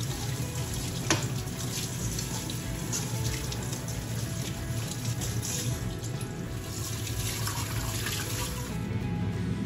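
Tap water running into a stainless steel sink while dishes are washed and rinsed, with a sharp clink of metal utensils about a second in. Faint background music runs underneath.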